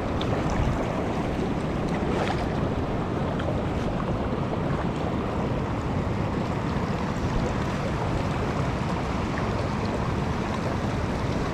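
Steady rush of a shallow river riffle flowing fast over stones, with a low rumble of wind on the microphone.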